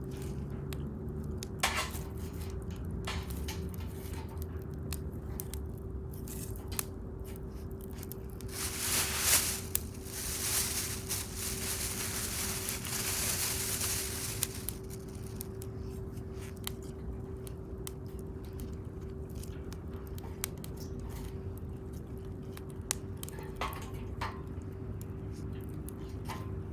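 Wood bonfire crackling with sparse, sharp pops over a steady low hum. A rushing hiss rises for about six seconds in the middle.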